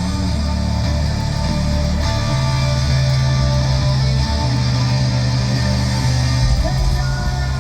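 Live hard rock band playing loud, with electric guitar over steady bass notes and no vocals.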